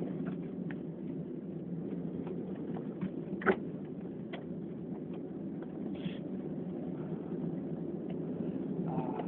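Steady low background rumble with faint scattered ticks. A single sharp click comes about three and a half seconds in, and a brief soft hiss around six seconds.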